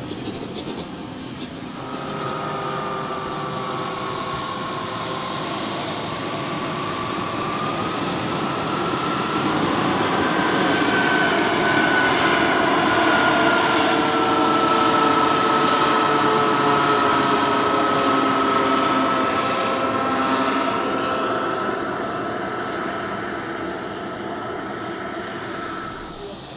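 Turbine engines of a scale Blackburn Buccaneer model jet whining steadily as it taxis, the pitch rising slightly about ten seconds in. Loudest in the middle as the jet passes, fading toward the end.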